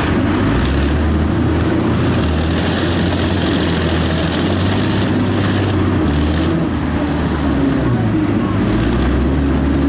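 PTS-M tracked amphibious transporter's diesel engine running under load while driving, a loud low drone whose pitch shifts several times, over a constant rushing noise.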